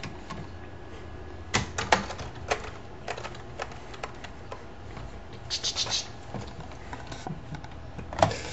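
A toddler's hands banging on a computer keyboard: irregular clacks and knocks of keys being struck, with a quick flurry of hits a little past the middle.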